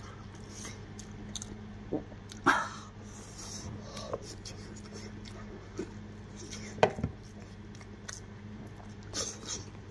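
Mouth sounds of a man eating boiled lamb head meat by hand: about eight short, scattered chewing smacks and clicks, the loudest about two and a half seconds in, over a steady low hum.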